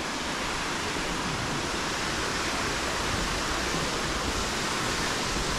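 Steady, even rushing noise with no break and a flickering low rumble underneath.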